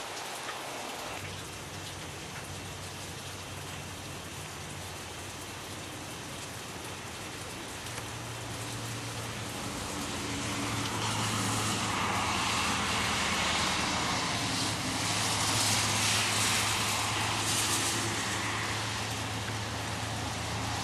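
Steady rain hiss, swelling louder from about a third of the way in, with a low steady hum like a vehicle engine running underneath.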